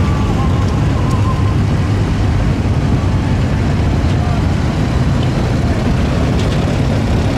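Engines of classic cars rolling slowly past in a line, a steady low rumble with voices in the background.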